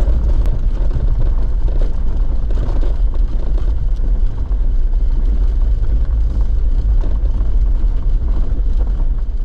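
A vehicle driving, with engine and tyre noise making a steady low rumble.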